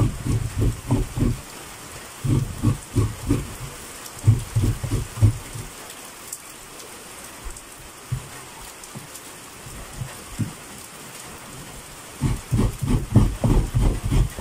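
Halved coconut being scraped against the serrated blade of a kudkuran coconut grater stool, in runs of quick rasping strokes about four or five a second, with a long pause in the middle. Steady rain hisses underneath.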